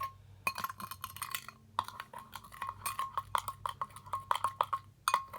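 A spoon clinking and scraping against the container in quick irregular taps, stirring a thick glue, lotion and colouring mixture for slime.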